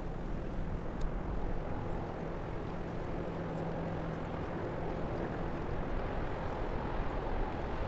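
Steady low rumble of a passing ro-ro cargo ship, with a faint low hum from its engines for a few seconds.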